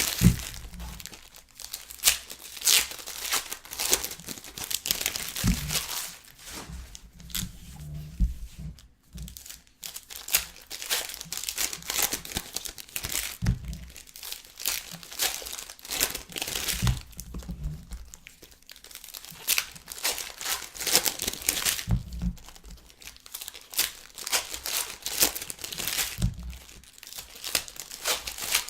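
Trading card pack wrappers being torn open and crinkled by hand, an irregular run of rips and crackles with a short lull partway through.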